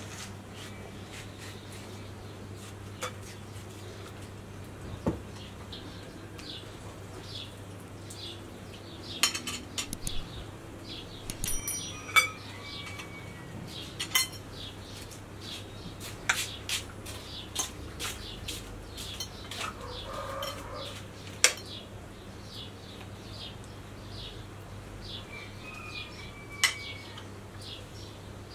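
Metal forks and a knife clicking and scraping against plates as watermelon is cut and eaten: irregular clinks, a few of them sharper than the rest.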